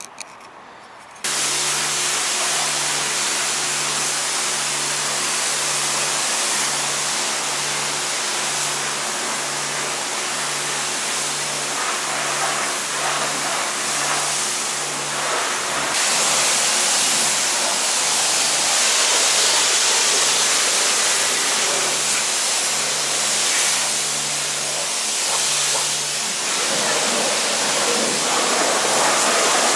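A loud, steady hissing rush that starts suddenly about a second in, with a low hum pulsing a little more than once a second beneath it that stops near the end.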